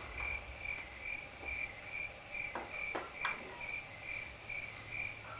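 Crickets chirping in an even rhythm, about two high chirps a second, over a faint low hum. It starts and stops abruptly, as a dubbed-in 'crickets' sound effect for an awkward silence.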